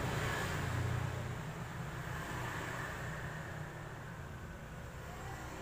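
Steady low hum under a hiss of background noise, a little louder for the first second or so and then easing off slightly.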